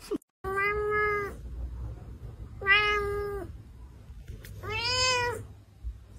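A cat meowing three times, each meow drawn out for about a second. The first two hold a level pitch, and the last rises and then falls.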